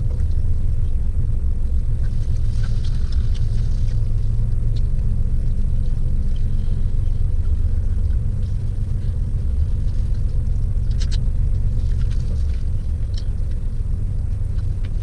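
Steady low rumble of a car engine idling, heard inside the cabin, with a few faint crunching clicks as crispy fried chicken is chewed.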